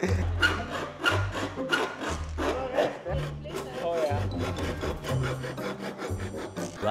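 Hacksaw cutting through an aluminium frame profile, the blade rasping back and forth in quick even strokes, about three a second.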